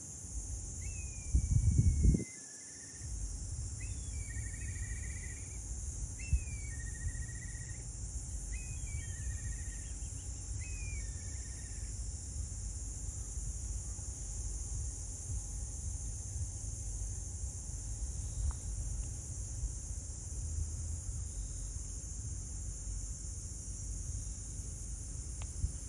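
Seaside outdoor ambience: a steady low rumble of wind on the microphone, with a strong gust about two seconds in, under a steady high insect drone. For the first twelve seconds or so, a bird repeats a short call about every two seconds: a downward-slurred note, then a lower trilled note.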